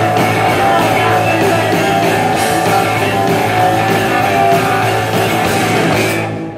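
Live rock band playing at full volume, electric guitars over drums and cymbals, then stopping suddenly near the end as the song finishes.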